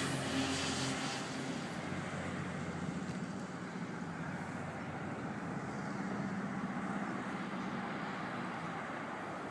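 Engine running steadily, its pitch wavering slightly.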